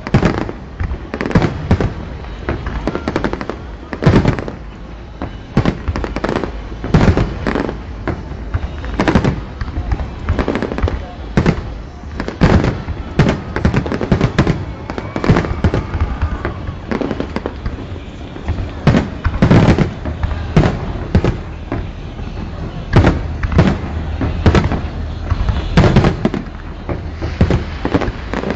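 Fireworks display: a dense, continuous barrage of shells bursting, with sharp bangs and booms following one another several times a second.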